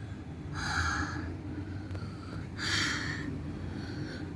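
A child breathing deeply in and out under a sheet over a pot of steaming herbal water, doing steam inhalation: three long breaths about two seconds apart, the last starting near the end.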